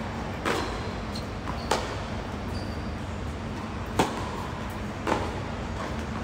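Tennis ball and racket impacts on a hard court: a couple of sharp knocks within the first two seconds, then the louder crack of a racket hitting a serve about four seconds in, and another knock about a second later as the ball comes back off the return.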